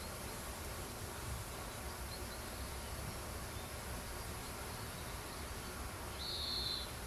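Outdoor ambience with a steady low background hiss, and a short buzzy high-pitched insect call lasting under a second near the end.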